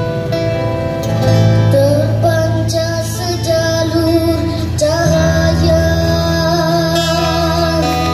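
Live band music: a boy sings long held notes with vibrato into a microphone over amplified acoustic guitar and electric bass.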